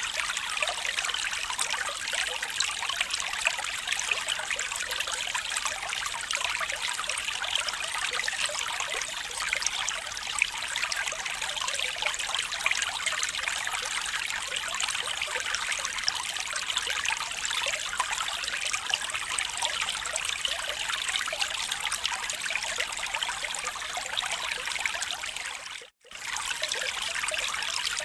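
Small stream trickling and splashing over stones, a steady babble of running water. The sound drops out for a moment near the end, then returns.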